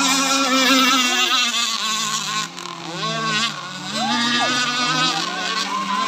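Several radio-controlled racing powerboats running flat out together, their high-pitched motor notes rising and falling in pitch as they pass and turn.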